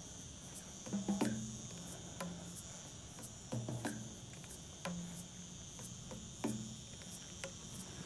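Steady high-pitched chorus of insects shrilling in dry summer countryside, with short, soft, low pitched notes, each starting with a faint click, recurring about every second to second and a half.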